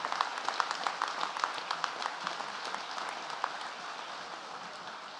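Audience applauding: many hands clapping in a dense patter that gradually thins and fades away.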